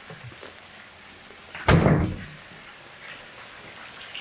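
A refrigerator door shut with a single thud about a second and a half in.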